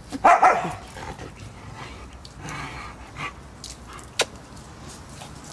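A dog panting, with a short loud burst near the start and a single sharp click about four seconds in.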